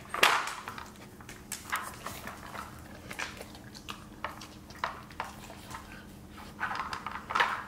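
Siberian husky working a plastic rotating treat-puzzle toy with its nose and tongue: scattered clicks and scrapes of the plastic layers, with sniffing and chewing of a treat. The sounds come thicker near the end.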